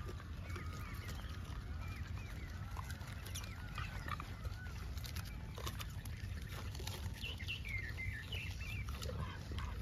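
Many short animal chirps overlapping, each rising and falling in pitch, over a steady low rumble, with a few sharp clicks.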